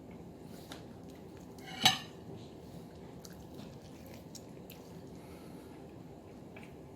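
Dishes and cutlery being handled: one loud sharp clatter about two seconds in, with faint small clicks and knocks around it.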